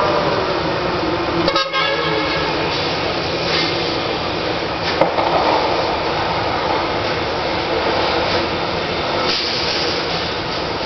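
Steady rushing rumble of a passing train, with a brief sharp click about five seconds in.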